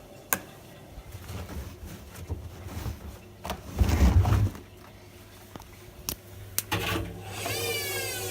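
Whirlpool washing machine running a synthetics 60° programme: scattered clicks and knocks, a heavy low rumbling thud about four seconds in, then a motor whine falling in pitch near the end.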